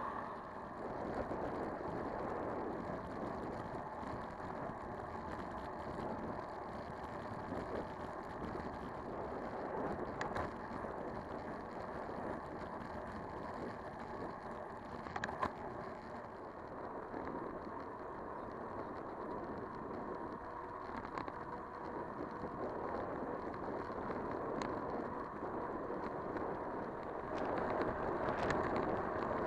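Steady rolling noise and wind while riding a bicycle, with a few light clicks and rattles.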